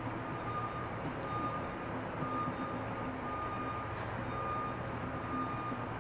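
Reversing alarm on construction equipment, a single high-pitched beep repeating roughly once a second, over a steady din of machinery and traffic.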